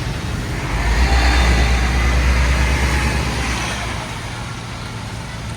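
A motor vehicle passing close by on a city street. Its low engine rumble and tyre noise swell about a second in and fade away after about four seconds, over steady traffic noise.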